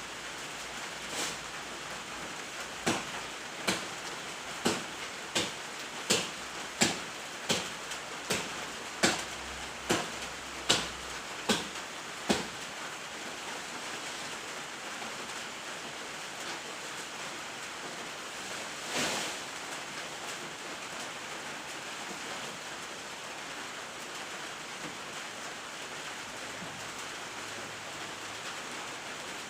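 Steady rain-like hiss with a run of sharp chopping strikes, about one every three-quarters of a second for the first dozen seconds, then a single strike later on: wood of a fallen breadfruit tree being chopped up.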